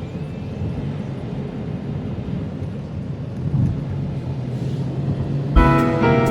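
Steady low rumble of road traffic and outdoor street noise. About five and a half seconds in, music with struck, pitched notes and drums starts over it.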